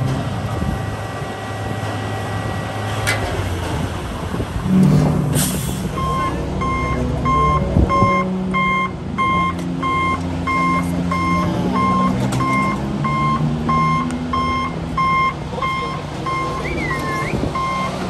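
A heavy construction vehicle's engine running. A couple of clanks sound early on, then about six seconds in its backup alarm starts, a steady beep about three times every two seconds as the vehicle reverses.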